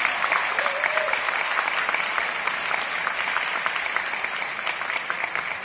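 Concert hall audience applauding, a dense patter of clapping that slowly dies down near the end.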